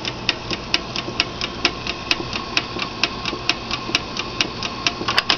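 Antique miniature live-steam engine running steadily, making a quick, even ticking of about five beats a second over a steady hum.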